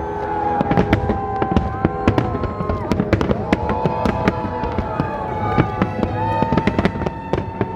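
Aerial fireworks bursting and crackling, with many sharp bangs in quick succession, over classical violin music playing long held notes.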